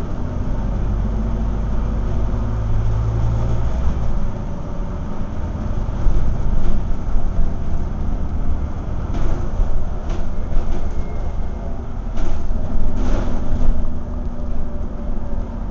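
Scania N230UD bus's five-cylinder diesel engine running, heard from inside the passenger saloon. A steady low engine note holds for about four seconds, then gives way to a rougher, uneven rumble. Several short knocks come from about nine seconds in.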